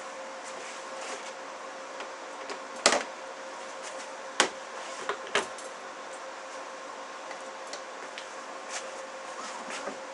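A few sharp clicks and knocks, the loudest about three seconds in and others a second or two later, over a steady hum.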